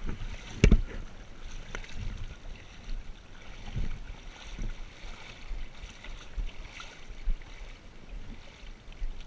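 Shallow seawater sloshing and lapping around a wader's legs, with irregular low rumbles and light knocks from gear being handled close to the camera; the loudest is a sharp knock less than a second in.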